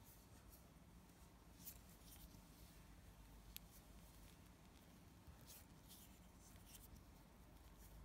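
Near silence with a few faint, scratchy rustles of thin fishing line being handled and wrapped between fingers, and one sharp tick about three and a half seconds in.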